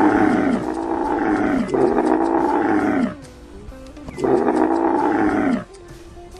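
An animal calling: long, drawn-out calls of about a second and a half each, every one dropping in pitch at its end. Three calls with short gaps between them, and a faint musical tone underneath.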